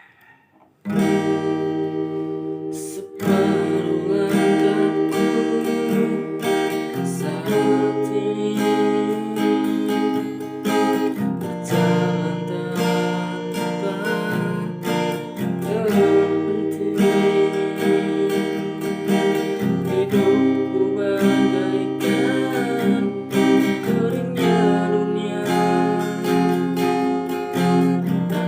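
Acoustic guitar strumming chords, with a voice singing along. The music starts about a second in and gets louder about three seconds in.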